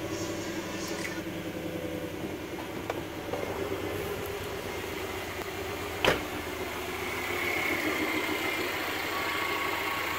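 Freshly rebuilt Subaru EJ flat-four engine (EJ20 short block with EJ18 heads) idling steadily just after being started, running pretty good. A single sharp knock comes about six seconds in, and from about seven seconds a faint steady high whine joins as the engine grows a little louder.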